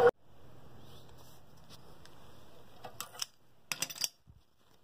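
Two short clusters of light metallic clinks and rattles, about three seconds in and again just before four seconds, over a faint steady low hum: small steel tools or pieces being handled on a steel drill press table.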